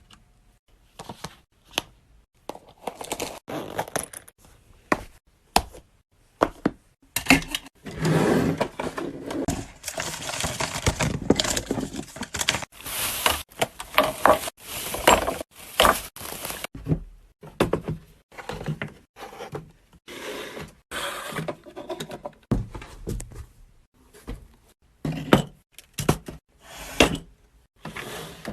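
Household items and containers being handled and set down: an irregular run of knocks, clatters and rustles, busiest in the middle stretch.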